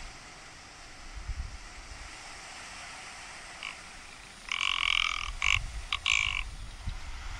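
Rock ptarmigan giving dry, croaking calls: one faint call a little past the middle, then three or four short croaks in quick succession over about two seconds.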